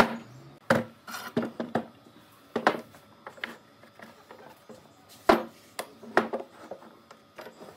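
Pine boards being handled and set down on a wooden workbench: a string of irregular sharp wooden knocks and clatters, about a dozen, the loudest right at the start and about five seconds in.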